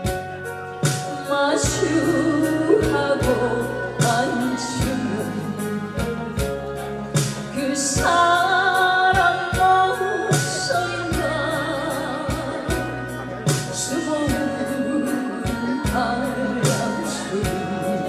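A woman singing a Korean ballad over a backing band, with a steady drum beat.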